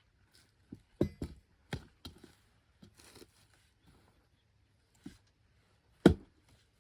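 Hammer-loosened bark being levered off a freshly cut ironbark log with a crowbar: irregular sharp cracks and knocks, with a brief tearing rasp about three seconds in and the loudest crack near the end.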